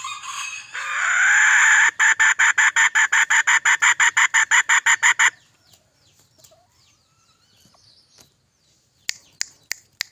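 A decoy red junglefowl rooster calls loudly for about five seconds, starting with a drawn-out note that breaks into a fast, even pulsing of about six beats a second. A few sharp clicks follow near the end.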